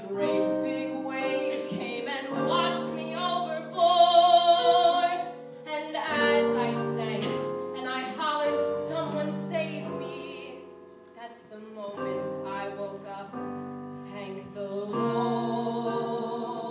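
A woman singing a show tune in an operatic style over piano accompaniment, with a loud held note with vibrato about four seconds in.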